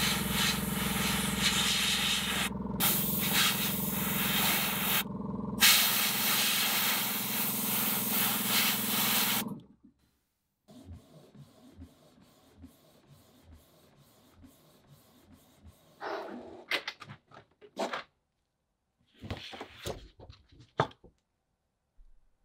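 Airbrush spraying paint with a loud, steady hiss over a low hum; the spray stops briefly twice. About ten seconds in it cuts off, and then a Canon printer runs faintly with small ticks and two short bursts of mechanism noise.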